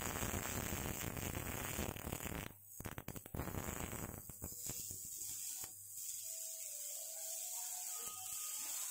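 Freight wagon rolling on steel rails: a steady rolling noise with a few sharp clicks about three seconds in, then quieter, with faint high tones in the second half.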